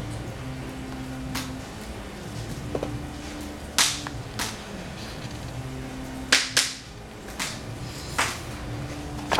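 Paper pages of a book being turned by hand: a string of sharp snaps and rustling clicks, loudest about four seconds and six and a half seconds in, over a low background hum.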